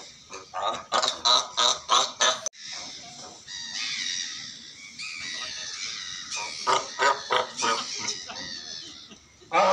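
Cape fur seals calling: a run of barks about three a second, then a long, high, wavering call through the middle few seconds, then barking again near the end.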